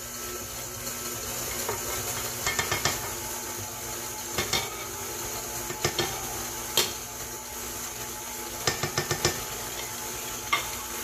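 Stand mixer motor running steadily with a wire whisk in a stainless steel bowl, while pieces of butter are pushed off a plate into the bowl with a spatula, giving scattered clinks and knocks against the bowl and plate.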